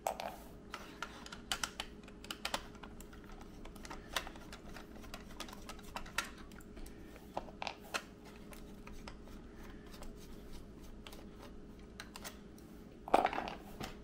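Light, scattered clicks and taps of a small screwdriver turning screws out of a plastic alarm clock case, with a louder clatter near the end.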